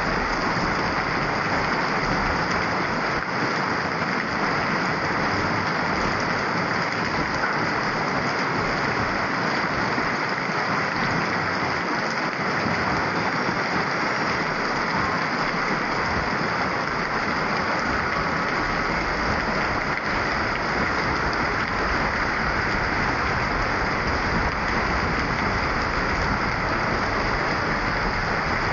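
Heavy monsoon rain pouring onto a flooded street, a steady, even hiss with no let-up.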